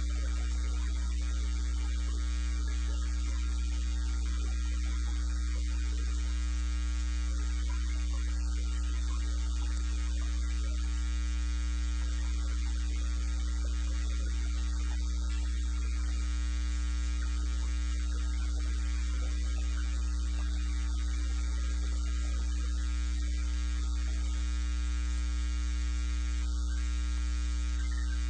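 Dead air on a NOAA Weather Radio broadcast: a steady low electrical hum with fainter higher hum tones and a light hiss, and no voice.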